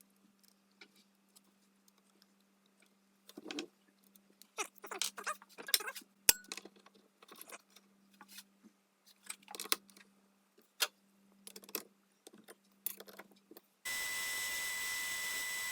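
Brass being bored on a metal lathe: irregular scraping and clinking of the cut over a faint steady hum. About two seconds before the end it changes abruptly to a steady hiss with a high whine.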